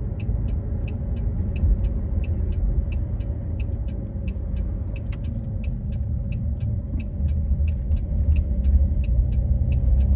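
Chevy Blazer's 4.3-litre V6 running at a steady idle after a crank-but-no-start fault, which the mechanic traced to missing spark and a bad distributor cap. A light, fast, regular ticking, about five a second, sounds over the idle.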